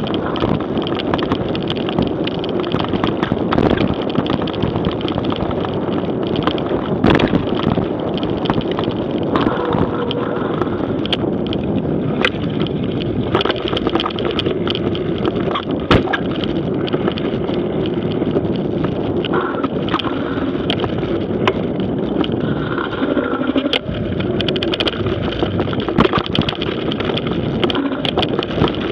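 Mountain bike riding fast over a rough, muddy dirt trail, heard through a Garmin VIRB action camera's microphone: a steady rush of tyre and ride noise with frequent sharp knocks and rattles from the bumps.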